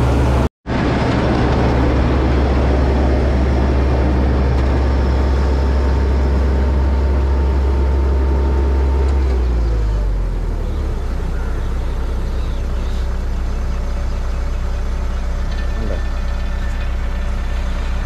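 Kartar 3500 G combine harvester's diesel engine and threshing machinery running steadily, a deep drone. It cuts out for a split second just after the start, and about ten seconds in the lowest part of the drone drops away and the sound thins.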